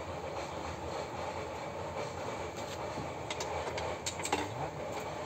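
A steady rumbling noise, with a few short clicks and knocks as a metal motorcycle side case is unfastened from its rack.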